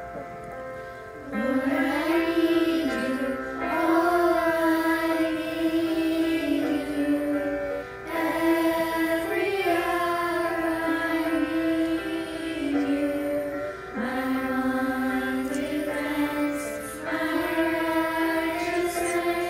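Children's choir singing a slow worship song with piano accompaniment, the voices entering about a second in and singing in phrases with brief breaths between them.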